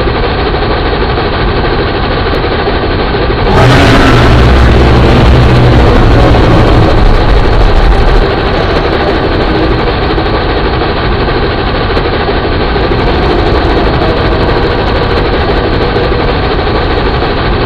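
Sound effect of a monstrous ghost train: a loud, continuous mechanical engine drone with a steady hum. About three and a half seconds in it surges louder with a heavy low rumble, then settles back after about four seconds.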